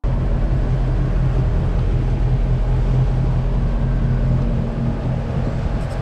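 Motorboat engine running steadily while the boat is underway, a loud, even low drone.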